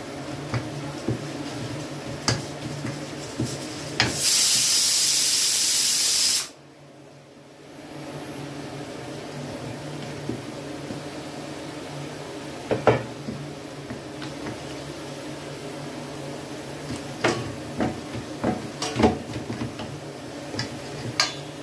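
About four seconds in, a pressure cooker whistle lets off steam in a loud hiss for about two seconds, then cuts off suddenly. Around it, dough is kneaded by hand in a stainless-steel bowl, with scattered light clicks and knocks against the steel.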